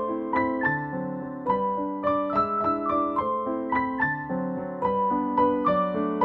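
Background piano music: a melody of struck notes at an even pace, each ringing and fading.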